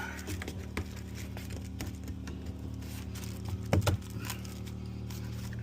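PEX pipe and a push-to-connect elbow fitting being handled and pushed together: light rustling and small clicks, with a sharper knock about four seconds in, over a steady low hum.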